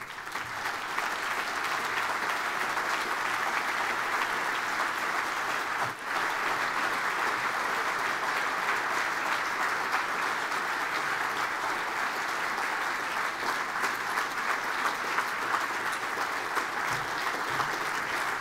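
An audience applauding steadily, the clapping building up within the first second.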